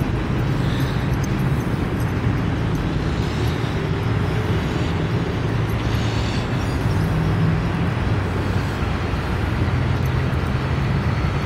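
Steady traffic noise from vehicles on a highway overpass: an even rumble and hiss with no single event standing out.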